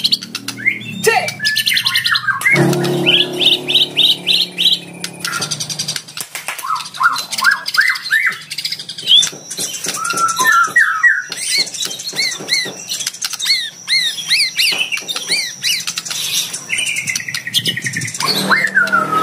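White-rumped shama (murai batu) singing a loud, varied song. It runs through rapid ticking trills, quick runs of repeated rising notes and a long series of arching whistles. This is a lure song meant to provoke rival males into singing back.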